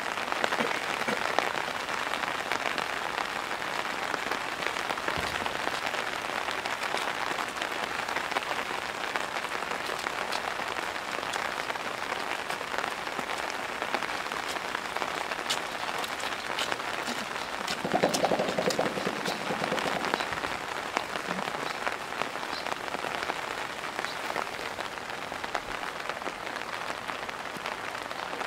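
Heavy pouring rain pattering steadily on surfaces. About two-thirds of the way in, a young male western lowland gorilla beats his chest in a quick burst lasting about two seconds, the loudest sound here.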